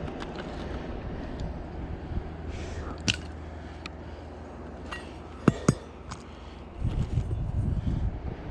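Handling noise from tools and materials: scattered knocks and clicks, with two sharp metallic clinks in quick succession about five and a half seconds in that ring briefly. Low rumbling comes in near the end.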